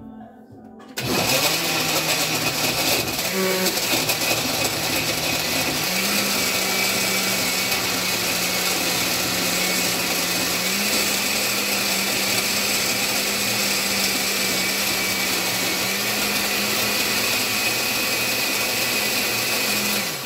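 Countertop blender running on a load of fruit and orange juice for the first blend of a smoothie. It starts about a second in, runs steadily with its motor pitch stepping up a notch twice, and stops at the end.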